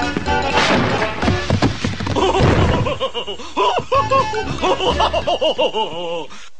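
A cartoon character laughing, a rapid run of repeated ha-ha bursts over background music, cutting off suddenly near the end.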